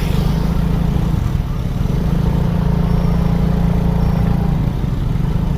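Bus engine running with a steady, loud low rumble.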